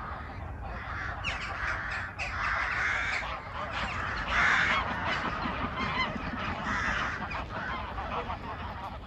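A large flock of geese honking and calling together, a dense, unbroken chorus of overlapping honks that swells loudest about halfway through.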